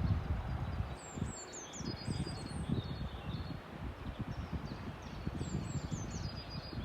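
A songbird singing two similar phrases of quick high whistled notes, one about a second in and another near the end, over a low, uneven rumble.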